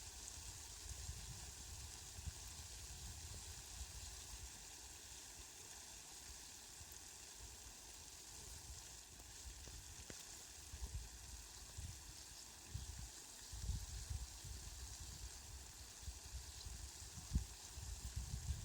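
Steady hiss of falling rain, with uneven low rumbles that come and go, stronger in the second half.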